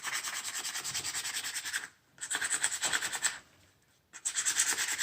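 320-grit sandpaper rubbed quickly back and forth over the metal electrical contacts of an Electrolux vacuum's handle, about eight strokes a second, pausing twice. The contacts are being cleaned and smoothed so they connect properly again.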